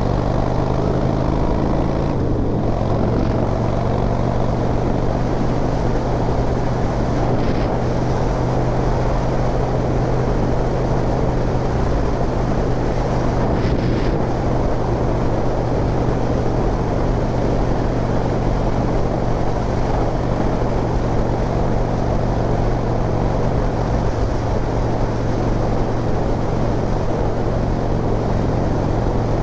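Harley-Davidson V-twin motorcycle cruising at a steady speed, the engine running evenly under a constant rush of wind noise.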